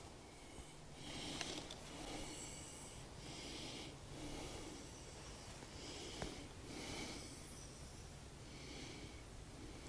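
A person breathing close to the microphone, a soft puff of breath about once a second, with one faint click about six seconds in.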